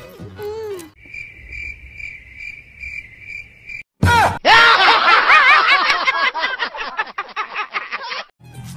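Crickets sound effect: a steady high chirp repeating about twice a second. A sudden hit about four seconds in, then a loud, fast-warbling high-pitched sound effect that runs for about four seconds and stops abruptly.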